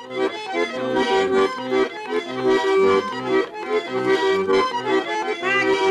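Russian garmon (button accordion) playing a folk tune, with chords held over steadily changing bass notes.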